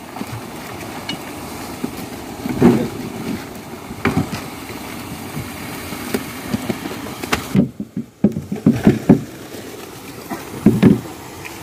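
Plastic crates being handled, knocked and set down: scattered clatters, with a quick run of knocks about eight to nine seconds in, over steady background noise.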